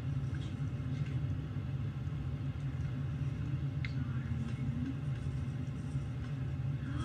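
A steady low hum or rumble, with faint scattered sounds above it.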